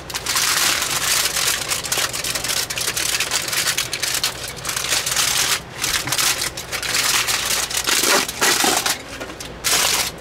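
A sheet of aluminium foil crinkling and rustling as it is handled by hand, with short breaks about halfway through and shortly before the end.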